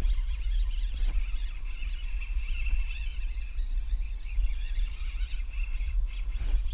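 Low rumble of wind on an action camera's microphone, with faint high-pitched bird chirping throughout and a couple of soft knocks, about a second in and near the end.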